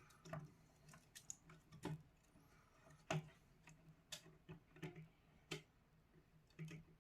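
Light, irregular clicks and taps of plastic parts as an opened PS5 controller is handled and turned over, about a dozen over the stretch.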